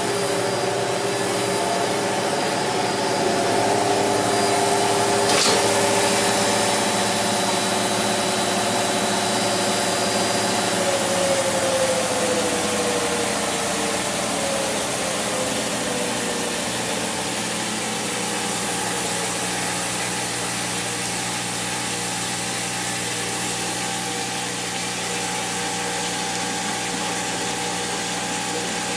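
Maytag Neptune front-load washer's new drive motor spinning the drum through its belt at speed during the service test cycle: a steady machine whine made of several held tones, with a single click about five seconds in. From about eleven seconds in, one of the tones slides lower in pitch.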